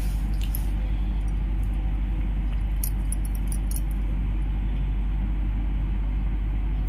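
Steady low background hum, with a few faint clicks about three seconds in.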